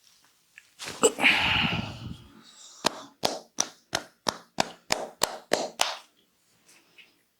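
Head-massage hand strokes: a rough rubbing sound about a second in, then a run of about ten sharp hand slaps, evenly spaced at roughly three a second.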